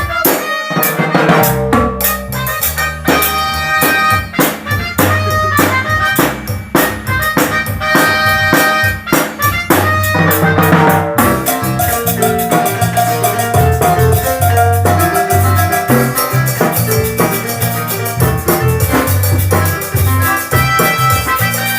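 A band playing an instrumental passage: a drum-kit beat with a bass line underneath. About halfway through, steady cymbals join in and a held higher note sounds for a few seconds.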